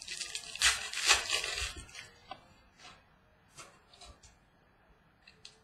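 Football trading cards handled by hand: a couple of seconds of rustling as the cards slide against each other and are flipped through, then a few scattered light clicks and taps.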